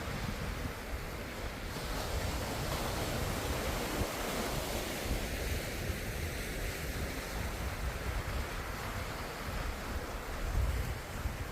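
Ocean surf: waves breaking and washing in a continuous rush, with a stronger low surge near the end.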